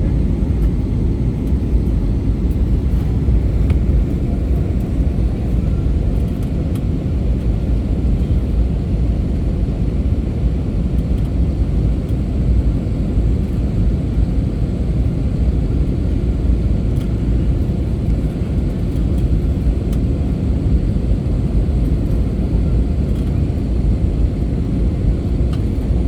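Steady low rumble of a passenger plane's cabin in flight: engine and airflow noise with no change in level.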